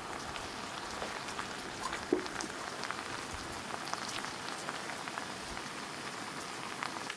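Steady rain falling on a surface, a constant hiss dotted with many separate drop ticks, one sharper drop about two seconds in.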